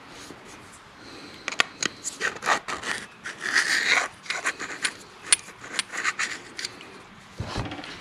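Hands turning and rubbing a steel hydraulic cylinder gland fitted with new seals: a run of light rubs and scrapes with sharp clicks, then a dull knock near the end as it is set down.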